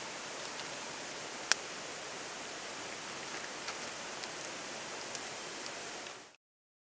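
Wood fire crackling in a small campfire grill, with one sharp pop about a second and a half in and lighter snaps later, over the steady rush of flowing river water. The sound cuts to silence near the end.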